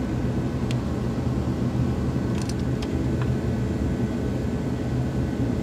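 Steady low rumble of running machinery, with a few faint light clicks.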